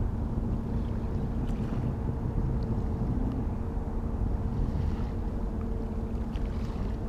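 Outdoor wind on the microphone, a steady low rumble, with a faint steady hum at two pitches running underneath.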